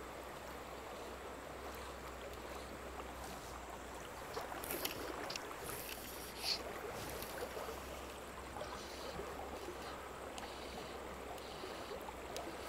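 Shallow river running over a riffle: a steady rush of flowing water, with a few faint ticks near the middle.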